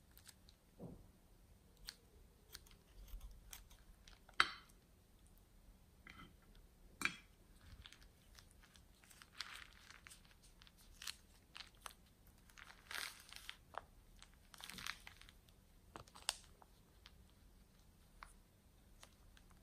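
Plastic piping bag crinkling and crackling as it is squeezed to push foam beads out into clear glue. Faint, scattered short crackles and rustles, with the sharpest snaps about four and a half and seven seconds in.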